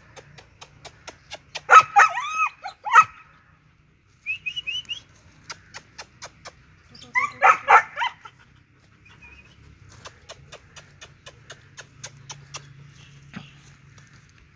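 German Shepherd puppy barking in two bursts of high, yelping barks, about two seconds in and again about seven seconds in. Rapid, evenly spaced clicks tick along between the barks.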